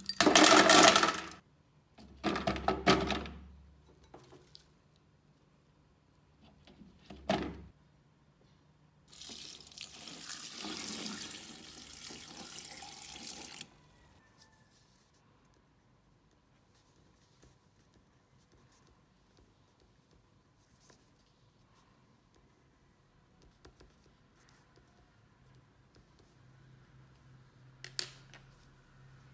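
Dried soap nuts dropped from a bowl into an empty plastic jar, clattering in two loud bursts and a shorter one a few seconds later. About nine seconds in, water is poured into the jar for about four and a half seconds.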